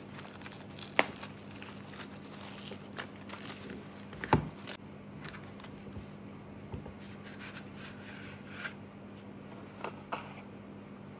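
Clear plastic shrink wrap crinkling and rustling as it is peeled off a cardboard album box, with light handling taps and clicks. There is a sharp tap about a second in and a louder knock about four seconds in.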